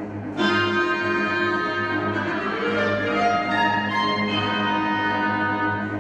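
Chamber orchestra playing classical music live: the strings come in louder with sustained chords about half a second in and hold them over a steady low note.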